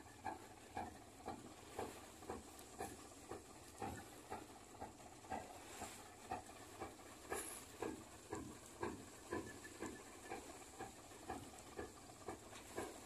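Boat engine chugging steadily, faint, at about two beats a second.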